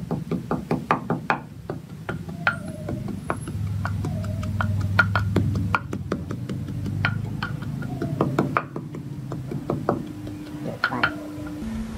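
Wooden pestle pounding chopped aromatics in a mortar, a run of dull knocks about two to three a second, as curry paste is being ground.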